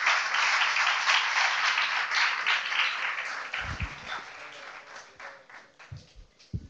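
Audience applauding, the clapping dying away over the first few seconds. A few short low thumps follow near the end.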